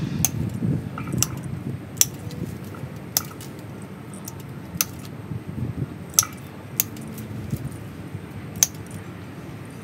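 Hand pruning shears snipping twigs and leaves off a ficus bonsai: about eight sharp, irregularly spaced snips, with leaves rustling as the branches are handled.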